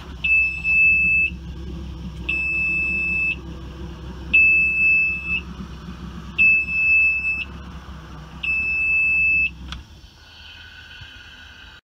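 Honda 200 hp outboard's helm warning buzzer beeping in a high steady tone, about one second on and one second off, five times, over a low rumble. It is the engine's fault alarm, signalling a trouble code. A click about ten seconds in ends the beeping and the rumble.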